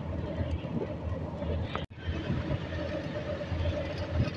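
Engine and road noise of a moving open-sided motor rickshaw, heard from inside as it drives. It is a steady low rumble that cuts out abruptly for an instant about two seconds in, then carries on.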